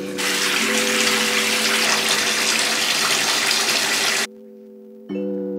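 Bathtub filling: water gushing steadily from the tub spout into the tub, cutting off suddenly about four seconds in. Background music plays under it.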